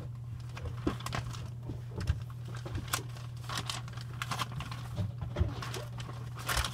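Paper catalogue pages rustling and crackling as they are handled and turned, in short scattered bursts, over a steady low hum.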